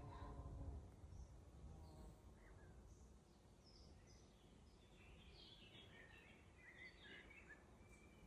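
Faint woodland birdsong: scattered short high chirps, then a denser run of twittering about five to seven seconds in, over a low rumble.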